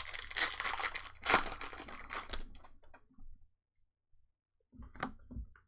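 A trading-card foil pack being torn open and its wrapper crinkled, with the loudest rip about a second and a half in. The crinkling stops about three seconds in, and a few soft handling sounds follow near the end.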